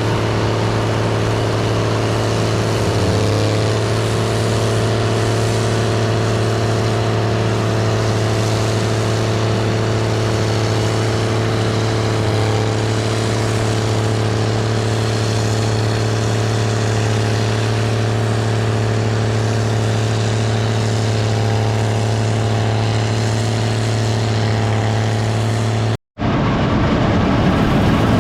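Gleaner R72 combine running steadily: a constant engine and machinery drone with a strong low hum. About two seconds before the end it cuts off abruptly and a louder, rougher rumble takes over.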